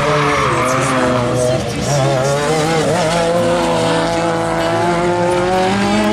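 Rallycross car's engine revving hard under acceleration through a corner, its pitch wavering about halfway through and then climbing near the end.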